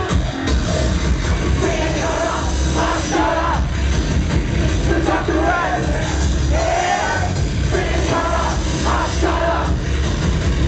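Live industrial electro music played loud through a club PA, with a heavy bass beat and a voice singing over it.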